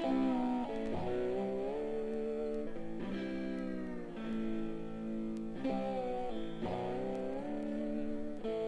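Electric slide guitar playing alone, its notes gliding up and down in pitch in separate phrases, played back from a vinyl record.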